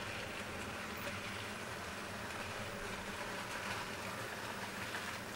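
OO gauge model train, a Hornby Class 31 hauling four ICI tank wagons, running along the track with a steady, even rumble.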